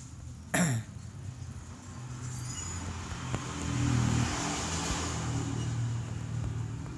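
A road vehicle going past, its engine and tyre noise swelling to a peak and easing off. About half a second in, a short sharp sound drops steeply in pitch.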